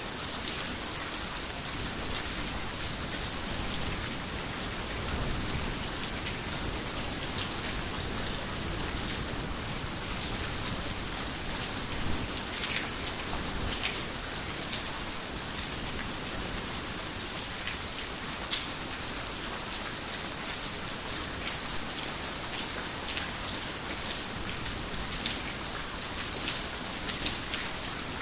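Heavy rain falling steadily on a garden house, a dense even hiss with frequent sharp ticks of single drops striking the surface.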